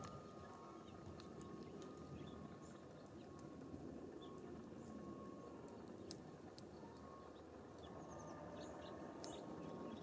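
Faint outdoor ambience at a bird feeder: a low steady rumble with a few faint, short bird chirps and scattered small ticks.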